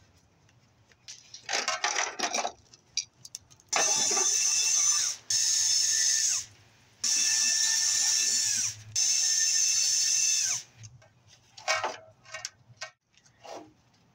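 Cordless drill running in four bursts of about a second and a half each, its whine dropping in pitch as each run stops: backing out the screws that hold a CRT picture tube in its frame. Shorter clicks and rattles come before and after.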